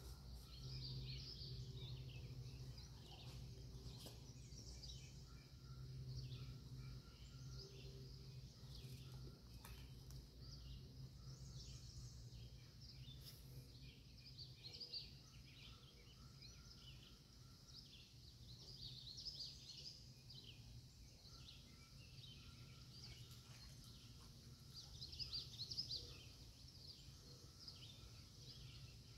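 Faint birdsong: bouts of quick high chirps and trills every few seconds, loudest near the end, over a steady low hum.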